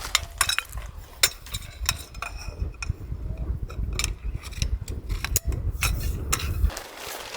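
Strong wind buffeting the microphone as a low rumble that drops away sharply near the end, over scattered sharp clicks and clinks of hard camping gear being handled during the tarp pitch.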